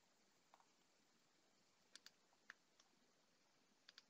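Faint computer mouse button clicks, a handful of them, some in quick pairs, as points are picked on screen; otherwise near silence.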